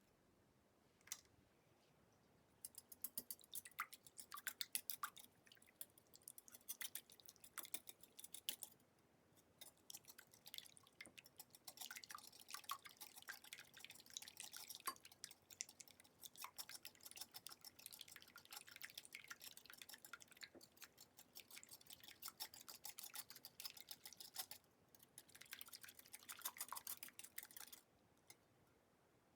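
Bursts of rapid, light clicking and crackling from food preparation, broken by short pauses, with a single click about a second in.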